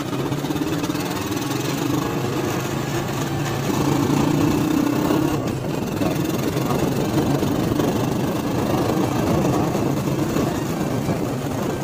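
Motorcycle engine of a tricycle running as it is ridden along the road, getting a little louder about four seconds in.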